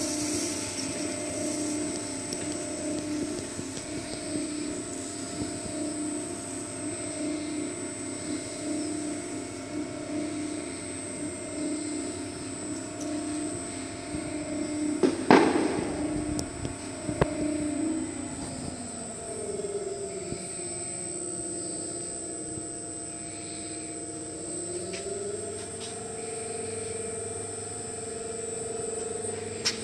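Small stainless-steel screw oil press running with flax seed in its hopper: a steady motor hum with a high whine above it. A sharp knock comes about halfway through, and after it the motor's note drops and wavers.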